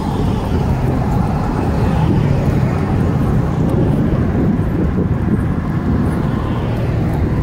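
Steady rumble of wind on the microphone of a moving bicycle, with the tyre noise of cars on the street swelling and fading.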